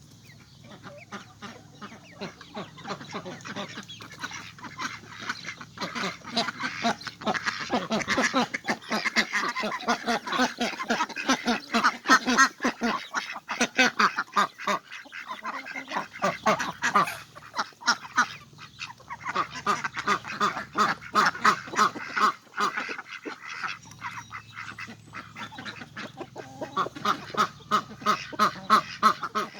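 Ducks quacking, many short calls in quick succession. They are quieter for the first few seconds, then louder, with a couple of brief lulls.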